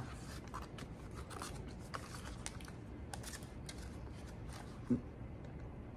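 Leather roll-up spice wallet being handled and unrolled: faint scattered rustles, light clicks and taps, with one brief louder thump about five seconds in.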